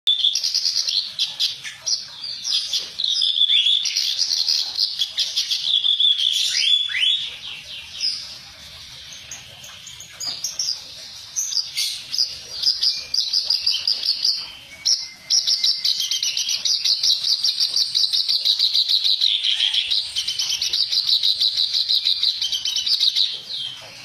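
Caged kerak basi (reed warbler) singing a harsh, rough song of fast chattering, grating phrases. There are short breaks about a third of the way in and just past halfway.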